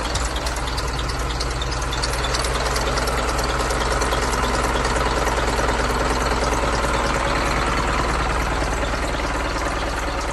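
Isuzu Forward's 4HK1 four-cylinder diesel engine idling steadily.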